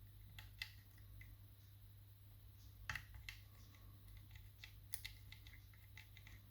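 Faint, irregular clicks and ticks of a pick and tension tool working the levers inside a lever mortice lock, over a low steady hum.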